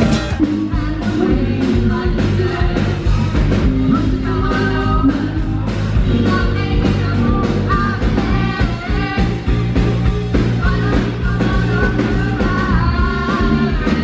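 Karaoke singer with a live rock band: a sung melody over electric guitar, bass and drums keeping a steady beat.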